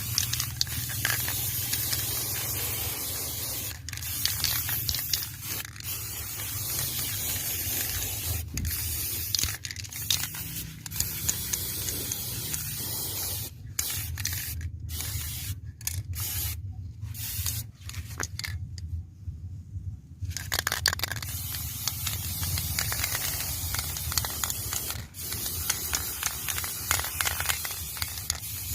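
A steady hissing spray over a low hum, cutting off briefly many times, most often in the middle stretch.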